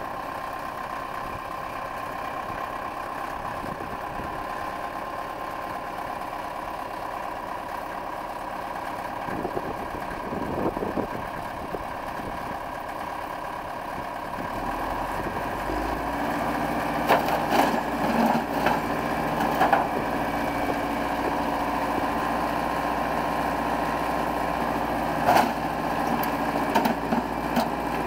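Wheel loader's engine running steadily, then working harder with a deeper note about halfway through as its bucket comes down on a wrecked car. Scattered sharp cracks and knocks of metal being pressed follow in the second half.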